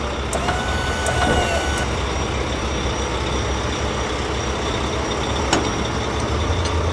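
Heavy construction-vehicle engine running steadily for an animated asphalt paver, with a few brief high tones about a second in and a single sharp click about five and a half seconds in.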